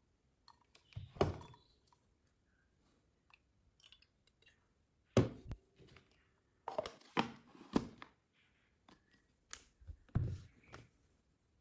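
A small plastic item being handled: irregular knocks, thunks and clicks, the loudest about five seconds in, with a cluster of them a little later. No fan motor is heard running.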